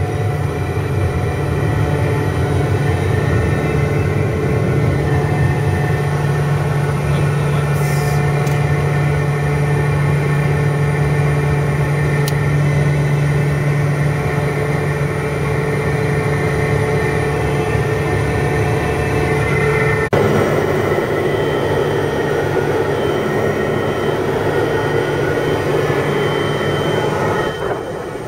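Cabin noise of a Piper JetProp in flight: its Pratt & Whitney PT6A turboprop engine and propeller give a steady drone, with a strong low hum and several steady tones over it. About 20 seconds in the sound changes abruptly to a rougher, noisier drone with a weaker hum.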